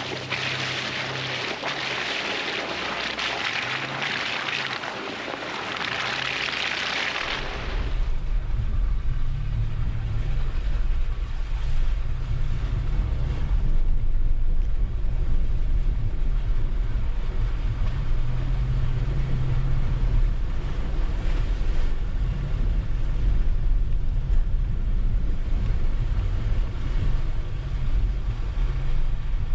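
Wind hissing on the microphone for the first several seconds. Then it cuts to a 4x4's engine running steadily with a low rumble and hum as the vehicle drives off-road.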